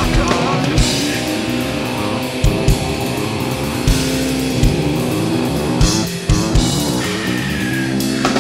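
Recorded nu-metal song in an instrumental passage with no singing: electric guitar riffing over a drum kit, kick drum hitting steadily underneath.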